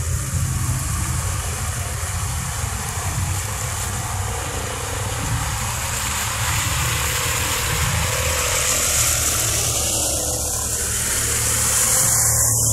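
ATV engine running, its revs rising a little about six seconds in and easing off again after about ten, with a steady hiss over it.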